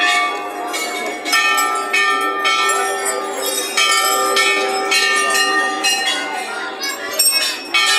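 Hanging brass temple bells struck over and over, the strikes coming every second or so and overlapping, each leaving a long ringing tone.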